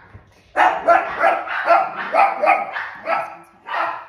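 Pet dogs barking excitedly: a quick string of short barks, about four a second, then a brief pause and another bark near the end.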